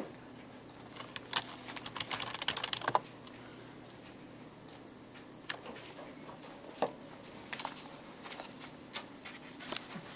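Keystrokes on a computer keyboard: a quick run of typing between about one and three seconds in, then scattered single key clicks, over a faint steady hum.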